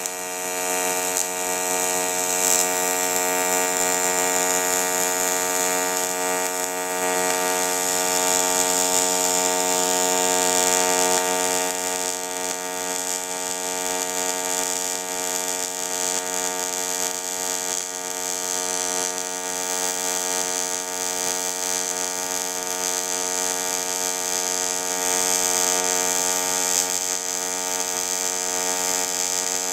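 Welding arc on an aluminum pipe: a steady electric buzz with a hiss above it, running without a break.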